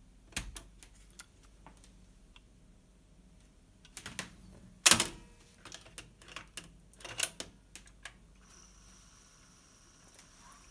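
Tandberg TCD 330 cassette deck handled: mechanical transport keys clicking, then the cassette door clacking open about five seconds in and snapping shut about two seconds later. A faint steady high whine with hiss sets in near the end.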